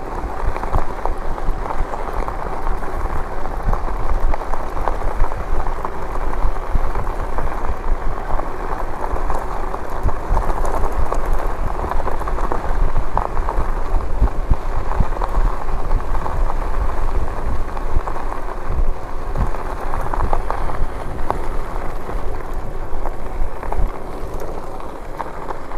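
Lectric e-bike riding along: a steady rush of tyre noise with fine crackle from the road surface, over a low wind rumble on the microphone.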